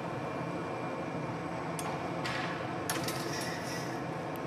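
Steady roar of glassblowing furnace and glory-hole burners. A sharp click comes a little under two seconds in, and two short bursts of hiss follow over the next couple of seconds.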